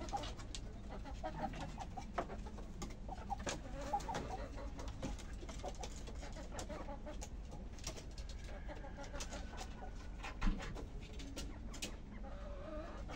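Chickens clucking and murmuring low as they go up to roost on a bamboo perch ladder, with scattered clicks and wing flutters. A single thump about ten seconds in is the loudest sound.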